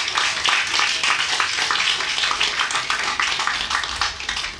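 Audience applauding, a dense patter of many hands clapping at once, which stops abruptly near the end.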